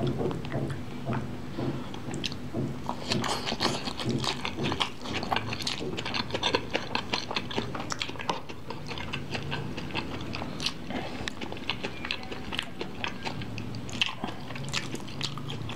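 Close-miked chewing and crunching of a mouthful of gado-gado vegetables, shredded cabbage and bean sprouts, with many quick, irregular wet mouth clicks and smacks.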